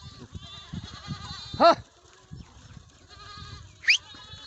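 Herd of goats with young kids bleating, many calls overlapping. One loud bleat rising in pitch comes a little before the middle, and a short, high rising cry near the end.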